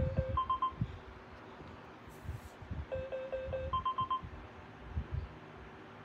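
iRobot Roomba 980 robot vacuum beeping as it runs through its built-in diagnostic tests on the dock: a low beep and three quick higher beeps, then about four low beeps followed by four quick higher beeps, with faint low thumps in between.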